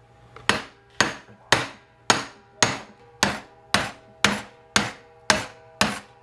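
Hammer blows on an impact socket used as a driver, seating a new bearing race into a 1965 Ford Falcon front wheel hub. The metal strikes come steadily about twice a second, each with a short metallic ring.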